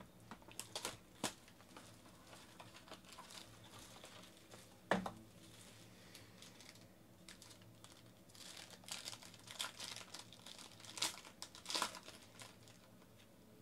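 A trading-card box handled with a few sharp clicks and taps, one louder knock about five seconds in, then a foil-wrapped card pack crinkling and tearing open over the last few seconds.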